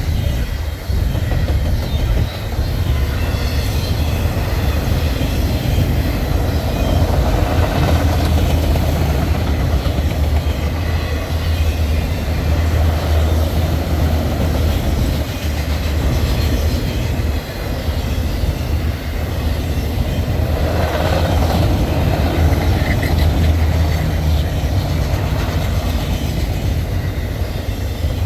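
CN Z148 freight train rolling steadily past: a continuous loud rumble of steel wheels on rail, swelling and easing a little as the cars go by.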